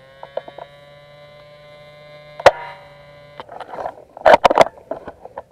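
Airsoft sniper rifle firing a single sharp shot about halfway through, over a steady electrical hum that stops soon after. A run of loud clicks and knocks follows near the end.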